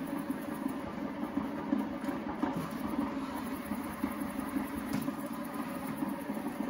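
Proscenic 820T robot vacuum running with a steady low hum: it is still cleaning despite the voice command to stop.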